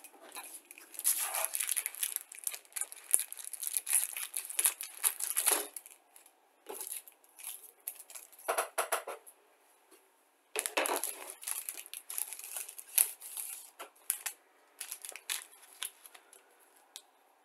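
Crinkling and rustling as plastic model-kit sprues and paper instruction sheets are handled and laid out, in irregular bursts with short lulls.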